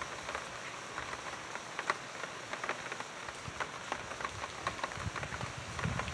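Rain falling, a steady hiss with many scattered drops ticking on a surface.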